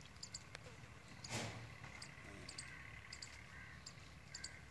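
Faint outdoor background: short high chirps repeat in quick pairs, with a brief rustle about a second in.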